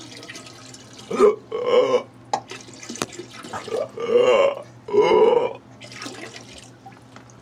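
A person retching and vomiting in four throaty heaves, with liquid splattering.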